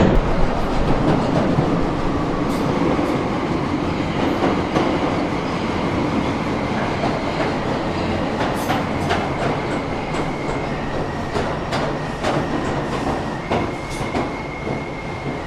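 Passenger train running on the rails, wheels clicking over the rail joints, the sound slowly getting quieter, with a thin steady high squeal coming in about two thirds of the way through.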